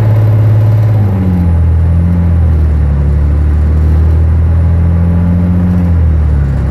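Cummins ISL diesel engine of a New Flyer D40i transit bus running as the bus drives along, heard inside the passenger cabin as a loud, steady low drone. The engine note dips about a second and a half in and again near the end.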